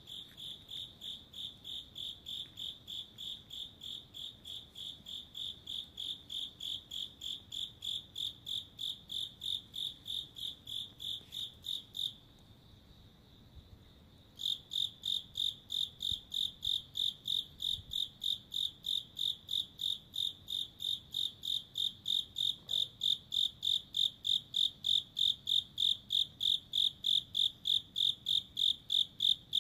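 A single night insect chirping steadily, about two to three even, high-pitched chirps a second. The chirping breaks off for about two seconds partway through, then resumes.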